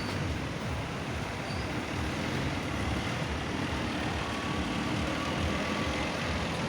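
Steady street traffic noise: vehicle engines running with a continuous low rumble.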